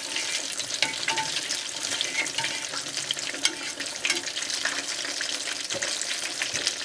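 Chicken wings deep-frying in hot oil: a steady sizzle full of small, irregular crackles and pops.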